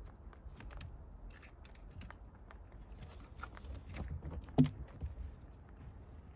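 Young rabbits moving about on the wire-mesh floor of a wooden hutch: light, scattered clicks and pattering, with one louder knock a little past halfway through.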